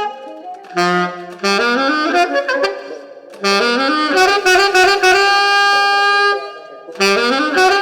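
Saxophone played in three short phrases, each starting on a low note and climbing in steps. The second phrase ends on a long held note.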